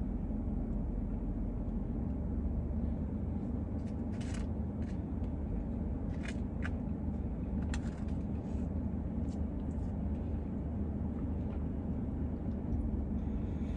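Steady low hum of a parked car running, heard from inside its cabin, with a few faint clicks in the middle.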